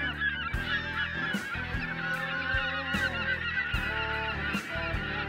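A flock of geese honking, many short calls overlapping, over background music with a bass line and a steady beat.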